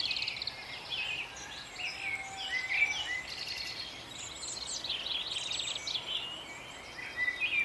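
Several birds singing and calling together in a garden: overlapping short chirps, whistled phrases and quick trills, with a faint outdoor background hum.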